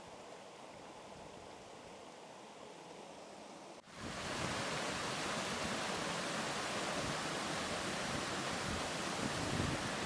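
Steady rushing of a waterfall, faint at first; after a sudden cut about four seconds in it becomes much louder and fuller.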